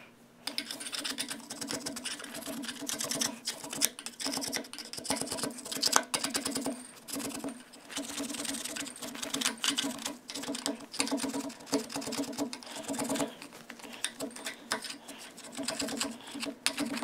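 A handheld power tool running with a rapid chattering whir as it bores into the corroded battery remains stuck inside a Mag-Lite flashlight. It starts about half a second in and drops off briefly twice.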